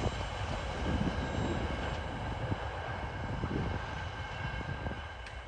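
Freight train's wagons rolling away on the track, a low rumble with scattered faint wheel knocks, fading steadily as the tail of the train moves off.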